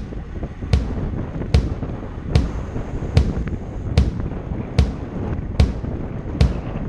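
Opening of a rock song: a sharp percussive hit about every 0.8 seconds over a low rumbling wash.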